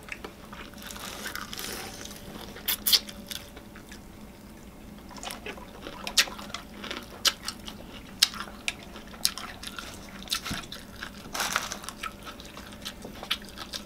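Close-up chewing and biting of crispy fried chicken: scattered short crunches and mouth clicks.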